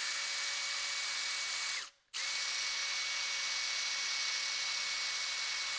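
Cordless drill boring a hole into an exhaust header collector for an O2 sensor bung. The motor runs at a steady speed for about two seconds, stops briefly, then starts again and runs on steadily.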